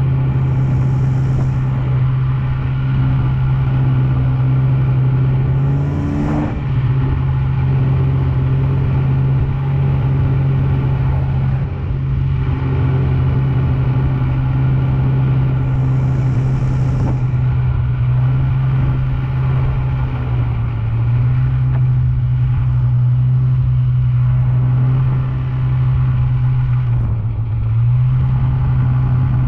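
Snowmobile engine running steadily under way, a constant drone with a few brief dips and rises in pitch as the throttle changes.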